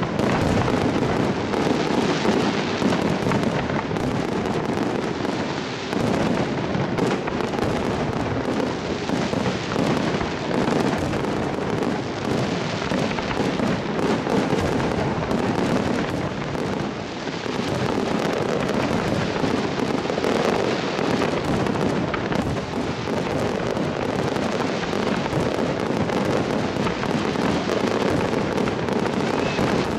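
Fireworks display: aerial shells bursting one over another in a continuous barrage of bangs and crackling, with no pause.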